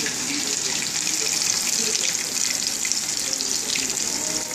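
Hot oil sizzling steadily in a frying pan around two corn-dough empanadas as they deep-fry.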